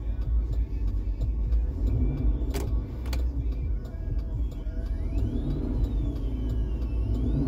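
High whine through the truck's speakers that rises, dips and rises again in pitch with engine speed as the gas is pressed, over a low engine rumble. It comes in about halfway through. The owner blames a failed rear audio control unit in this 2010 Chevy Tahoe.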